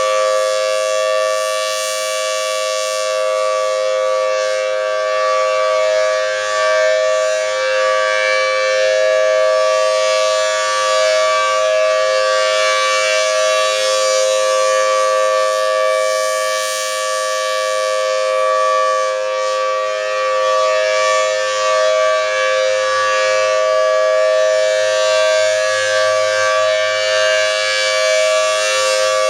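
Federal Signal Thunderbolt 1000T B-Series rotating outdoor warning siren sounding a steady two-note chord at full speed, with no rise or fall in pitch. Its sound swells about every seven to eight seconds as the horn turns.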